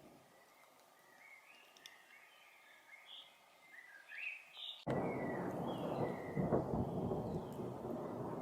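A songbird giving short chirping calls. About five seconds in, a loud rumble of thunder starts suddenly and keeps rolling, with the bird still calling over it.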